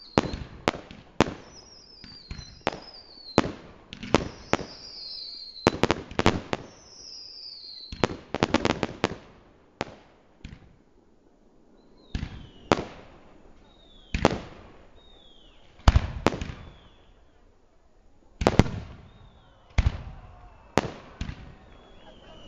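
Aerial fireworks shells bursting in a rapid series of sharp bangs, with whistles falling in pitch over the first several seconds. About eight seconds in comes a dense run of bangs, then more widely spaced bangs, several with a short falling whistle.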